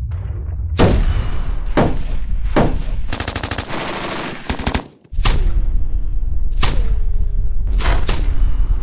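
Bulgarian MG1M (PKM-pattern) belt-fed machine gun in 7.62 NATO firing: heavy single shots about a second apart, each with a ringing tail, some ending in a falling tone, and a rapid full-auto run of about a second and a half in the middle. A steady low rumble runs underneath.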